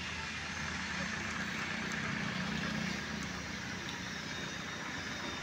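Steady motor-vehicle noise: a low engine hum under a hiss, swelling a little about two to three seconds in.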